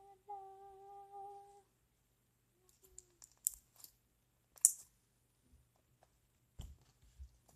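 A person humming one steady note for about a second, followed by a few scattered faint clicks and soft taps, the sharpest clicks in the middle.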